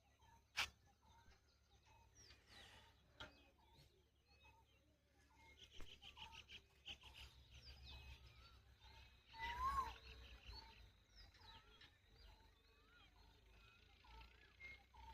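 Faint birdsong: several birds chirping and calling, one repeating a short note about every second, with a quick trill about six seconds in and a louder rising call near ten seconds.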